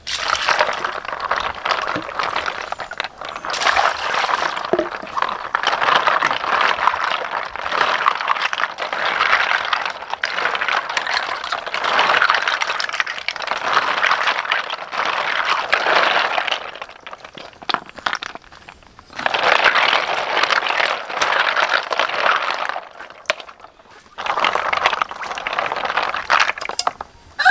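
Hands scrubbing a basin of mountain snails in water: snail shells clattering and grinding against each other while the water sloshes, in long stretches broken by a few short pauses.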